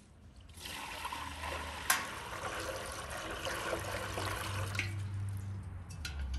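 Water poured from a metal bucket into a large aluminium pan, a steady splashing rush that eases off after about four seconds, with a sharp clink about two seconds in. It ends on a loud metallic clang.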